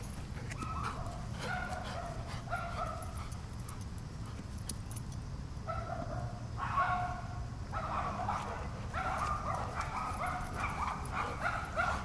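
A dog barking and yipping in short, repeated high calls, in bursts that come thicker and faster in the second half.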